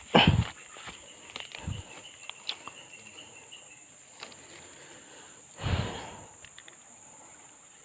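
Insects droning steadily at a high pitch, broken by two short loud noises, one at the very start and one about six seconds in, with a few faint clicks between.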